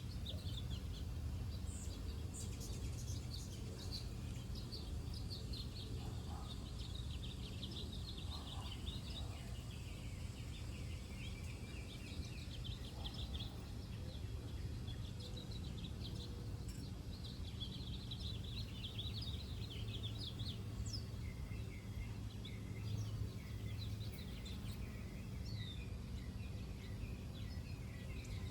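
Small birds chirping and twittering in quick repeated series, over a steady low background rumble.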